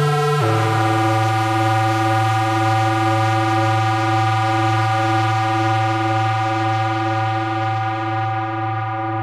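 Yamaha CS01 analog monosynth holding one low, buzzy note, rich in overtones, through a tape echo, with a slow slight wobble in level. A higher note overlaps it for the first half second. Its brightest top end fades away toward the end.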